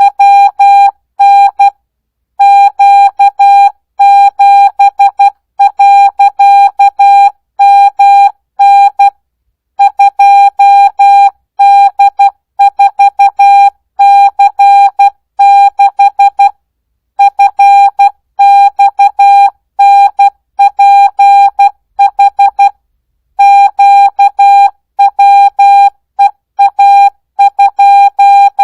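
Morse code practice tone sent at 12 words per minute without Farnsworth spacing: a single steady beep keyed on and off in short and long elements, with brief gaps between letters and words.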